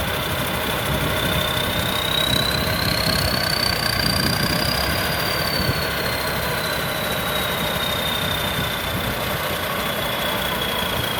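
Combine harvester's Hino J08C diesel engine running steadily, with a high whine that slowly rises and then falls over several seconds.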